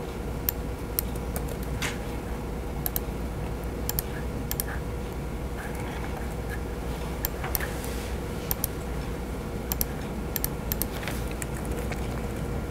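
Irregular clicks of typing on a laptop keyboard, over a steady low room hum.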